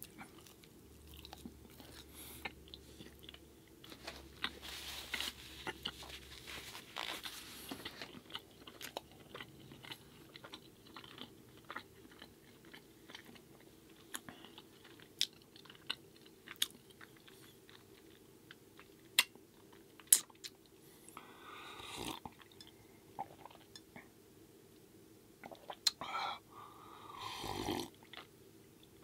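Close-miked chewing of food in a mukbang, with many scattered sharp clicks of the mouth and teeth as the food is bitten and chewed. A few longer, louder mouth sounds come near the end.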